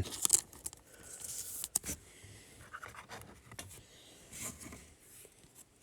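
Trading cards being handled and slid against one another: soft scratching and sliding with a few light clicks.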